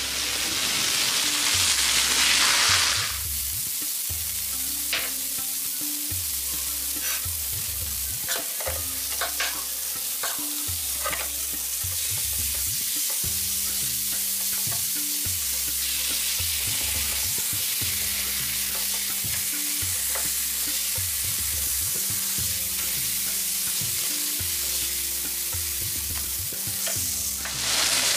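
Onions, green chillies and chicken tikka masala sizzling in oil in a frying pan while a wooden spatula stirs and scrapes them. The sizzle is loudest for the first three seconds, then settles into steady frying with scattered clicks from the spatula.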